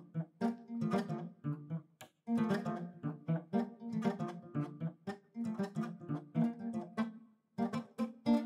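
Background music: an acoustic guitar plucking a melody note by note, with short pauses between phrases.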